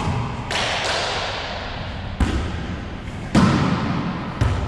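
A rubber wallyball being served and struck, with about five sharp thumps from hands and the court's walls. Each hit echoes in the enclosed racquetball court, and the loudest comes a little after three seconds in.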